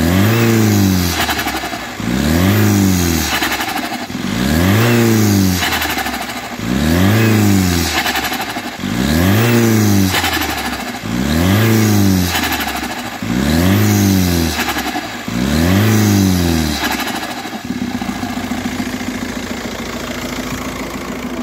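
A VW Passat B5.5's 1.9 TDI diesel engine blipped about eight times, roughly every two seconds, each rev rising and falling back, with turbo flutter as the throttle closes. It settles to a steady idle for the last few seconds.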